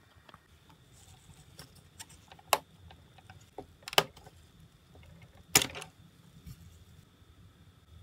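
Parts of a Chogokin Thousand Sunny model ship clicking and knocking as gloved hands handle them. There are three sharp clicks about a second and a half apart, the last the loudest, with small ticks between.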